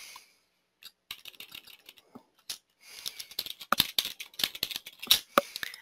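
Typing on a computer keyboard: a few scattered keystrokes, then a quicker run of key clicks from about three seconds in.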